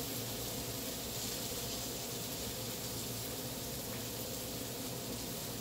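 Barbecue-sauced chicken thighs sizzling steadily on a Hamilton Beach electric indoor grill, with a low steady hum underneath.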